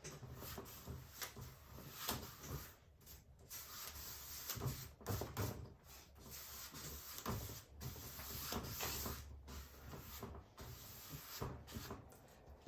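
A large 2-inch brush scrubbing acrylic paint across a canvas in irregular back-and-forth strokes, soft swishing and rubbing with occasional light bumps.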